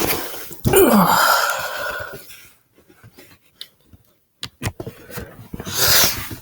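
A loud breathy exhale close to the microphone, with a falling pitch like a sigh, then a few sharp clicks and another breath near the end.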